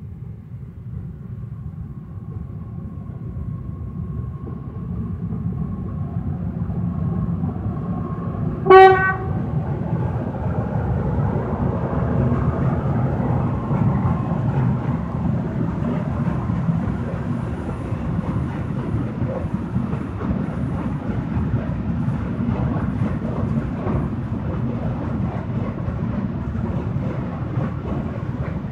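Freight train of open coal wagons hauled by a Newag Dragon 2 electric locomotive passing: a steady rumble with wheel clickety-clack that builds up over the first few seconds. About nine seconds in comes one short, loud train-horn blast.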